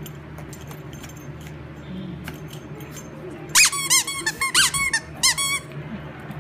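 A dog's squeaky plush toy squeaked repeatedly as a small Yorkshire terrier bites it: a quick run of about seven or eight high squeaks, each rising and falling in pitch, starting about three and a half seconds in and lasting about two seconds.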